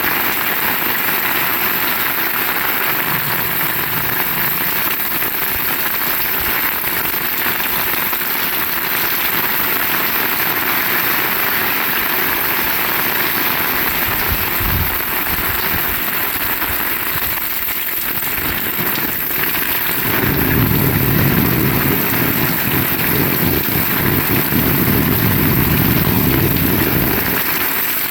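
Steady heavy rain falling, heard as an even hiss. A brief low thump comes about halfway through, and a low rumble sets in about two-thirds of the way through and lasts several seconds.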